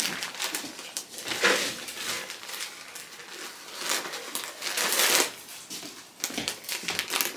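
Plastic bag of potting soil crinkling and rustling as it is tipped and squeezed over a plastic tub, with soil pouring into the tub. Loudest about a second and a half in and again around four to five seconds in.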